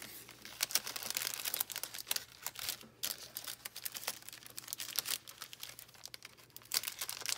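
Clear plastic packaging crinkling and crackling in irregular bursts as it is handled.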